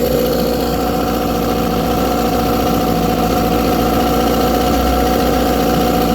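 1997 Tracker 40 hp outboard motor, built by Mercury, idling steadily at an even pitch. This is the motor that dies after idling a while, as though starved of fuel.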